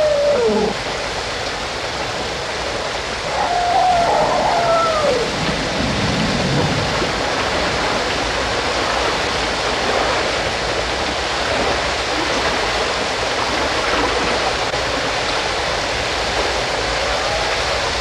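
Jungle nature-sounds recording: a steady rushing noise, with an animal's drawn-out call that rises and falls in pitch, fading in the first second, another about four seconds in, and a faint one near the end.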